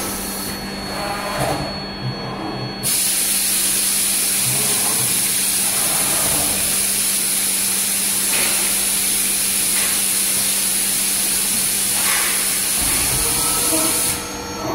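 Starch tableware forming press: a loud, steady hiss of venting air or steam starts abruptly about three seconds in and cuts off sharply near the end. A steady low machine hum runs under it throughout.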